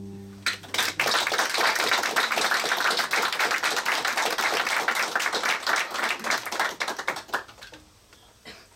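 Audience applauding: the clapping swells about half a second in, holds, and dies away near the end.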